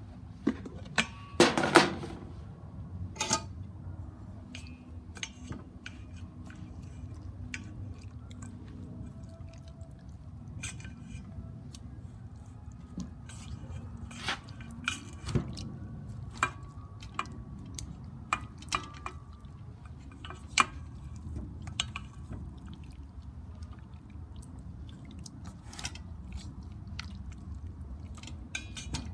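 A plastic lid handled off a stainless steel bowl with a few loud knocks, then wooden chopsticks turning marinated raw chicken drumsticks in the bowl. Scattered clicks and taps of the chopsticks against the steel mix with wet sounds of the meat, over a steady low hum.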